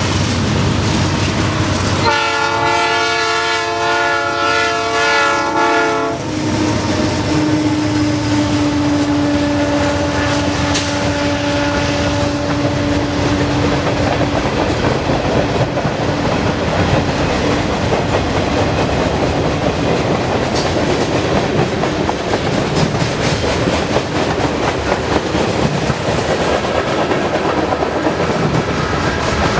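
Union Pacific train horn blowing one chord for about four seconds, a couple of seconds in. The train then rolls past with a steady rumble and clickety-clack of wheels over rail joints, while a lower steady tone fades away over several seconds.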